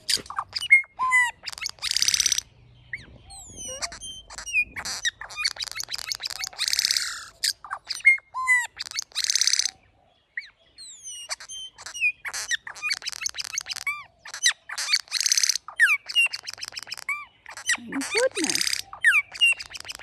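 Male Australasian figbird calling very loud at close range: a quick jumble of harsh, wheezy squawks, short swooping whistles and clicks, one after another.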